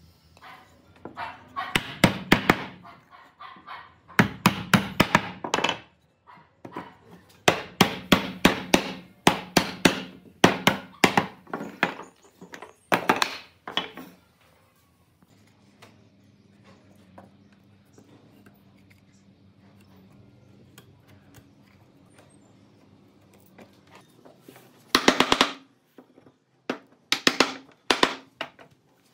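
Mallet knocking glued mortise-and-tenon joints of a wooden chair frame together: bursts of rapid blows, with a quieter stretch without knocks in the middle.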